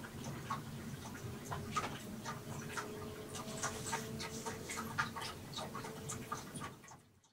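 Sleeping kitten purring steadily as it is stroked, under light clicks and rustles of hands and fabric; the sound fades out at the very end.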